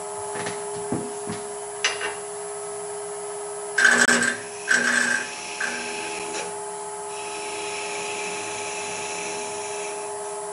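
Wood lathe running with a steady machine hum while a hand-held turning tool cuts the spinning scrap wood, turning it down to a small tenon. There are two loud scraping cuts about four and five seconds in, a shorter one just after, then a steadier, quieter cutting hiss near the end.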